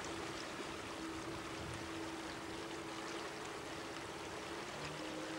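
Steady rushing noise of moving water around a small boat on floodwater, with a faint steady hum that shifts slightly near the end.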